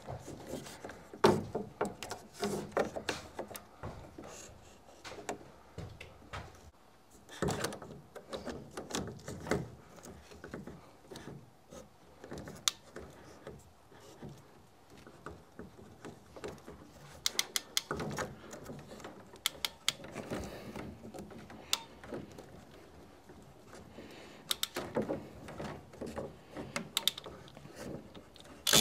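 PEX water tubing being handled and fed through wooden ceiling joists: irregular rubbing and knocking of plastic pipe against wood, with scattered sharp clicks, a cluster of them a little past the middle.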